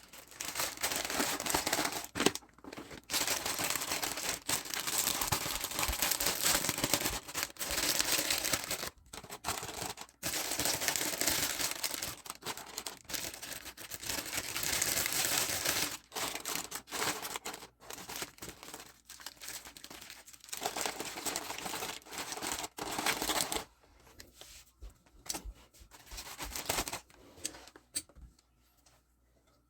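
Packaging crinkling and tearing as items are unwrapped by hand, in long stretches with short pauses, thinning to a few quieter rustles near the end.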